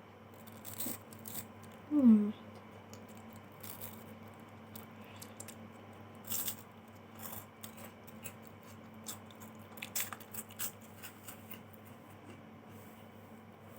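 Scattered crunches and clicks of someone chewing a chocolate wafer bar, over a steady low hum. About two seconds in comes the loudest sound, a short hum from the eater's voice that falls in pitch.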